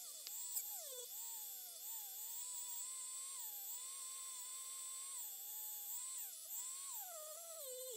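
Small rotary tool spinning a felt polishing wheel against a die-cast metal toy-car base, buffing it with metal polish. Its high motor whine dips and recovers in pitch again and again as the part is pressed onto the wheel and eased off. The recording is sped up.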